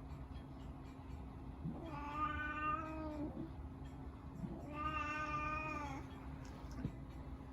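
Domestic cat meowing twice, two drawn-out meows of about a second each.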